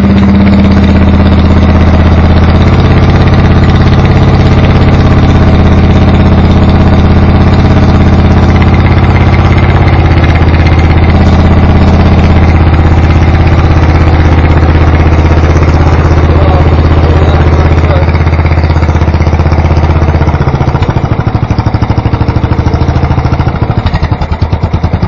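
Racing lawn mower engine running loud through a straight exhaust pipe fitted with a cut-down paint-can tip, held at a steady high speed. About 20 seconds in it is throttled down to a loping idle with separate firing pulses.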